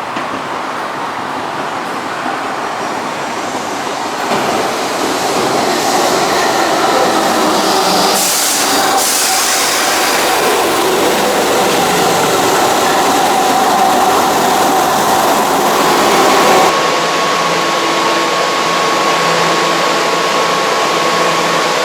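Keihan electric train running alongside the platform: the rumble grows louder about four seconds in, with a brief high hiss or squeal partway through. Near the end the sound settles into a steady hum with a held tone.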